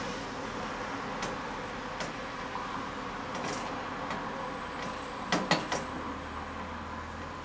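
Hands working a powder coating onto bone-in beef short ribs in a stainless steel bowl: soft handling with a few light clicks against the bowl, and a quick cluster of three sharper clicks about five seconds in, over a steady background hum.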